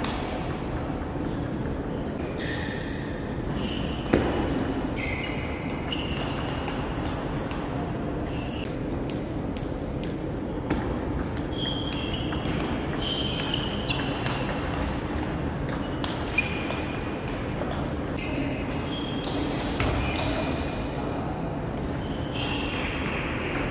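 Table tennis ball being struck back and forth in a rally: irregular clicks of the plastic ball off the bats and table, many with a short high ringing ping, over the steady background noise of a sports hall. A few single knocks stand out louder.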